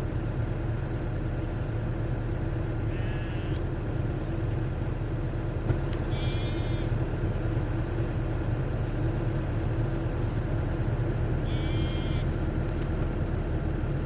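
Diesel engine of a Kobelco SK75 mini excavator running steadily under work. Three short high-pitched sounds rise above it, about three, six and eleven and a half seconds in.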